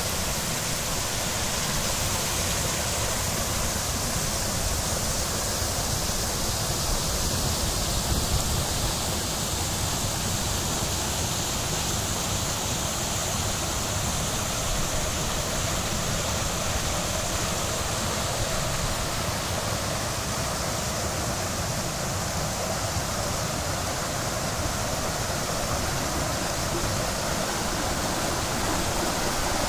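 Water of an ornamental garden cascade falling steadily over concrete tiers and stone steps into basins, a constant rush of falling water.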